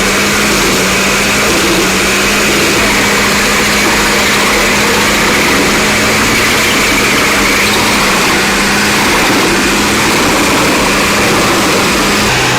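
A wood chipper runs steadily under its engine with a constant hum and dense mechanical noise. Near the end the hum drops to a lower pitch.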